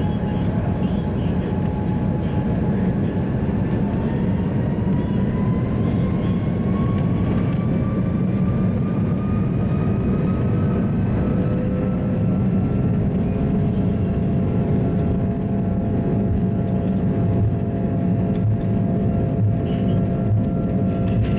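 Airbus A330 turbofan engines heard from inside the cabin: a whine rising in pitch over a steady deep roar as the engines spool up to takeoff thrust, levelling off into a steady tone for the takeoff roll.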